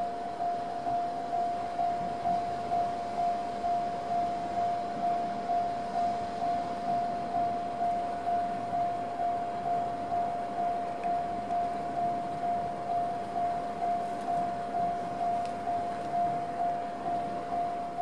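Japanese level-crossing electronic warning bell with the JR East Tohoku-type tone, dinging steadily and evenly at about two to three strikes a second: the crossing is closed for an approaching train.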